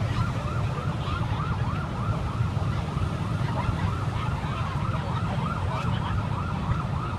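Emergency vehicle siren on a fast yelp, its rising sweeps repeating about three times a second, over a steady low rumble of engines and traffic.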